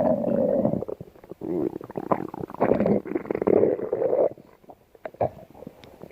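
Stomach growling: long gurgling rumbles with a wavering pitch, in several bursts. After about four seconds it drops to a few short pops and small gurgles.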